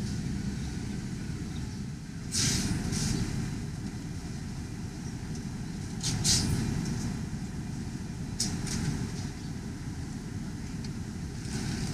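Car engine idling steadily, heard from inside the cabin, with a few brief hissing noises.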